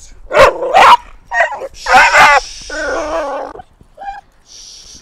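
A young reactive dog barking loudly on a leash, several barks in the first two and a half seconds, then a longer whining cry and a short yip about four seconds in. She is barking and lunging at the trainer while being corrected.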